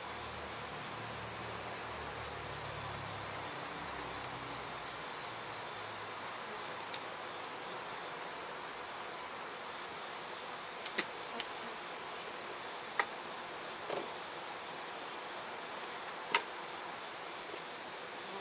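A steady chorus of singing insects: a continuous high-pitched trill with a slight pulsing to it. A few faint small clicks come in the second half.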